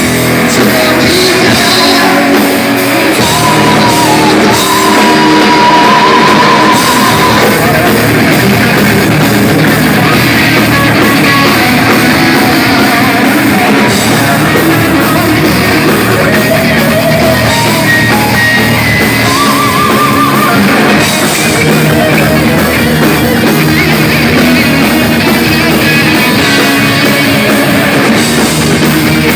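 Heavy metal band playing live: distorted electric guitars, bass and drums at full volume, with singing whose held notes waver in pitch.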